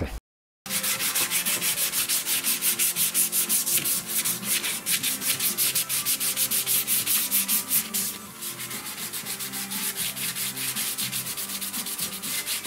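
Hand sanding of a car's bare steel front pillar, scuffing the repaired metal before paint. Rhythmic back-and-forth strokes, about three to four a second, a little quieter and quicker after about 8 s.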